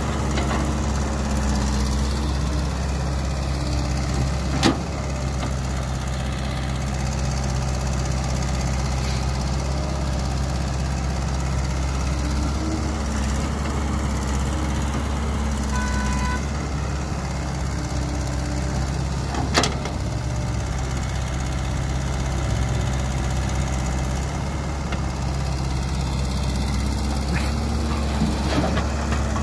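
Caterpillar E120B excavator's diesel engine running steadily as the machine digs and dumps soil, its pitch shifting a little with the hydraulic work. Two sharp knocks stand out, about 5 and 20 seconds in.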